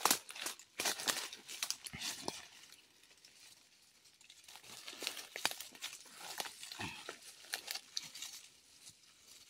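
Dry leaves and twigs crackling and rustling as hands work through the undergrowth, in quick irregular crackles that thin out about three seconds in and pick up again about five seconds in.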